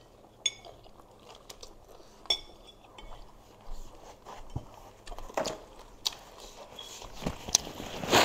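Close-miked eating sounds: biting and chewing, with a few ringing clinks of metal cutlery on a ceramic plate early on. Paper rustling builds near the end.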